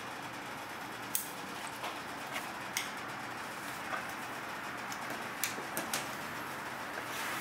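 Several light, sharp clicks and taps of kitchen utensils against a plate as food is being plated, spaced irregularly over a steady background hiss.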